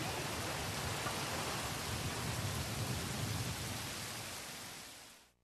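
Steady rain falling, an even hiss that fades out near the end.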